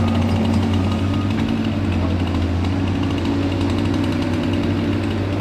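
Excavator's diesel engine running steadily under load, a low, even drone.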